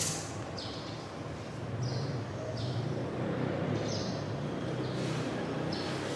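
A small bird chirping, short high chirps about once a second, over a steady low rumble of distant traffic. There is a sharp click at the very start.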